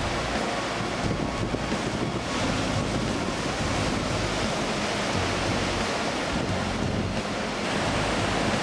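Steady rush of wind and surf, with gusts buffeting the microphone in low rumbles.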